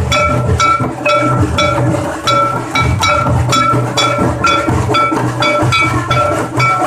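Santali dhol drumming in a steady, even rhythm of about three strokes a second. Each stroke has a deep drum sound under a short ringing pitched tone.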